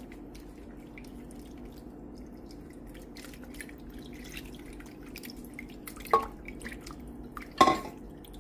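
Sausage gravy being stirred in a pan on the stove: faint scattered clicks and small wet plops as the utensil works the thickening milk gravy, with two louder knocks of the utensil against the pan, about six and seven and a half seconds in.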